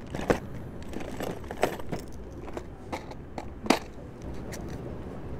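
Irregular clicks and knocks close by, three of them sharper and louder than the rest, over a steady low rumble.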